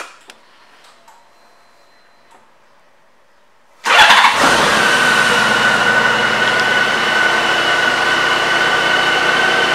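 A 2001 Honda Gold Wing's flat-six engine is cranked and catches about four seconds in, then settles into a steady idle.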